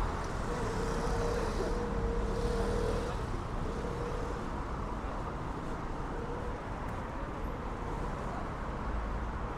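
City street traffic noise with vehicles running, and a steady engine hum that is strongest in the first few seconds and then comes and goes.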